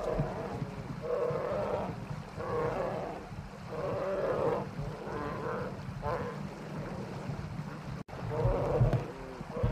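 Brown bear cubs humming as they nurse from their mother: a continuous low purring drone that swells in pitched pulses about once a second.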